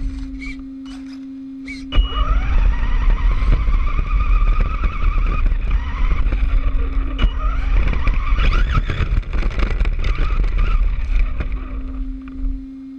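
Brushless electric RC car drive, most likely the Traxxas Bandit with its Castle Sidewinder 3 system, accelerating and running: a wavering high motor whine over a loud low rumble of the car moving across the ground. It starts suddenly about two seconds in and dies down near the end.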